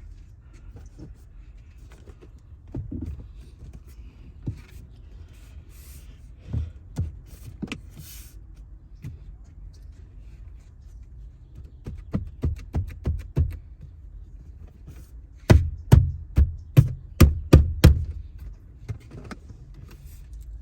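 Hand work on the car's rear seatbelt retractor mounting: scattered clicks and knocks, a quick run of small clicks in the middle, then a series of about eight loud sharp knocks, roughly three a second, near the end.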